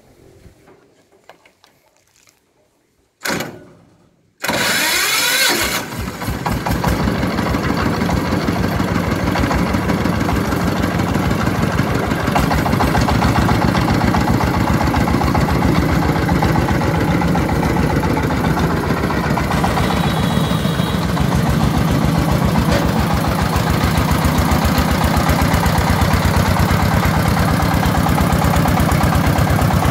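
Single-cylinder diesel engine of a homemade three-wheeled farm truck (công nông) starting: a short burst about three seconds in, then it catches and revs briefly. It settles into a fast, even chugging.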